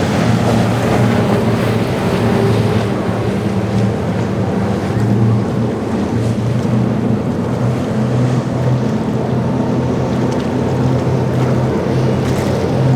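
Motorboat engines running with a steady low hum, over the wash of waves and wind buffeting the microphone.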